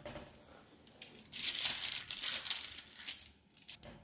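Baking paper crinkling and tearing as baked empanadas stuck to it are peeled off. The rustling starts about a second in, lasts about two seconds, and ends in a few short crackles.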